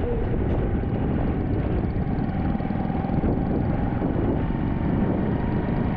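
Small 125cc-class motorcycle riding at a steady speed, its engine running under a steady rush of wind and road noise.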